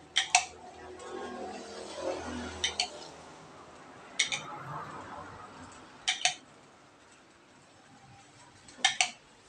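Pastry brush clicking against the rim of a plastic cup of glaze as it is dipped and tapped off: quick pairs of sharp clicks, five times, every two seconds or so.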